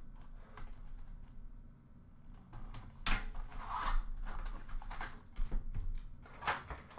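A cardboard box of trading cards being handled and opened by hand: scattered rustles, scrapes and light taps of cardboard. A longer scraping rustle comes about three seconds in.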